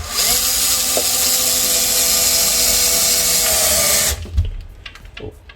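Cordless drill driving a hinge screw into a cabinet door, its motor running steadily for about four seconds before stopping suddenly. The screw is not biting into the wood.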